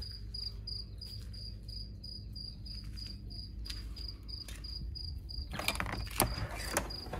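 A cricket chirping in an even run of high chirps, about three a second. About five and a half seconds in, a few sharp clicks and knocks come from a metal lever door handle and latch being worked.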